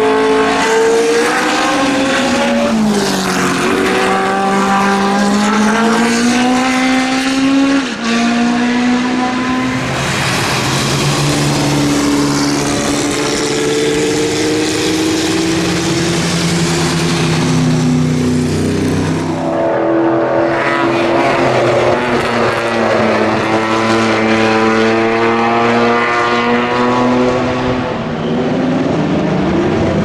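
Historic racing car engines at high revs as cars pass one after another, from a single-seater Formula 1 car to GT cars. The pitch climbs through the gears and drops on the downshifts, and the sound changes abruptly a few times as one car gives way to the next. In the middle stretch a hiss of spray from tyres on the wet track joins the engines.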